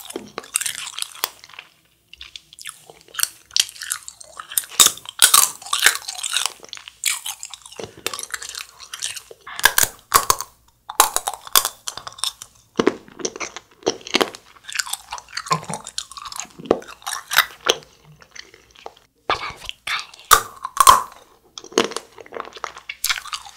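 Close-miked biting and chewing of frozen Nik-L-Nip wax candy sticks: repeated sharp crunches as the frozen wax tubes are bitten, with chewing between the bites.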